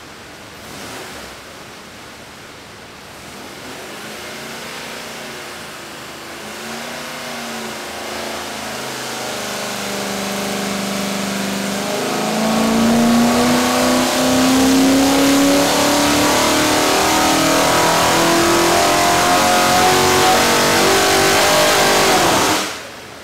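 396-cubic-inch Chevrolet V8 on an engine dynamometer, running through long-tube dyno headers in a dyno pull. The engine note climbs slowly at first. About halfway through it gets much louder and rises steadily in pitch as the revs build, then cuts off sharply near the end.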